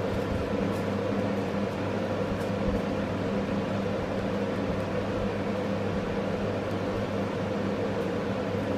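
A steady machine hum with a low drone that does not change.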